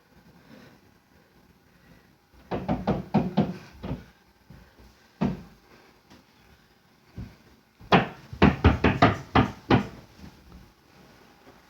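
Banging: two bursts of quick, loud knocks, one about two and a half seconds in and a longer one of about eight knocks near eight seconds in, with a single knock between them.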